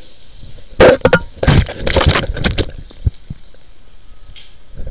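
High-pressure water jet spraying and splattering into a restaurant's greasy sump pit. It comes as a short loud burst about a second in and a longer one from about a second and a half to nearly three seconds, with lower steady noise between and after.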